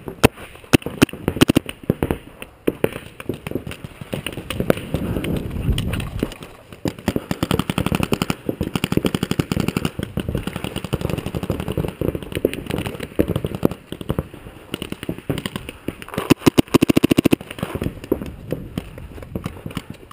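Paintball markers firing rapid strings of shots close by, a dense crackle of pops that keeps going, heaviest near the start and again about four-fifths of the way through.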